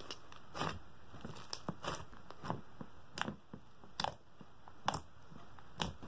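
A large bead-filled slime being squished and stretched by hand, giving irregular crunches and sticky pops as the foam beads and slime are pressed and pulled apart.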